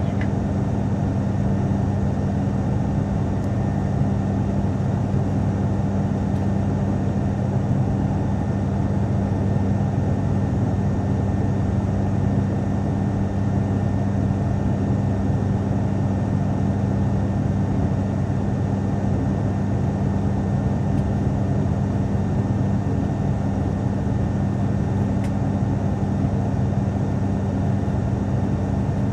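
Cabin drone of an ATR turboprop airliner in flight: a steady low hum from the propellers, with two even tones under a wash of engine and air noise, heard from inside the passenger cabin as the aircraft begins its descent.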